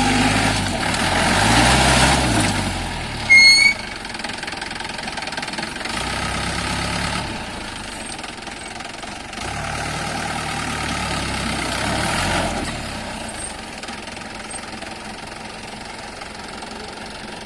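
Jeep engine running and revving up twice while being driven off-road. About three and a half seconds in there is a short, loud, high-pitched beep.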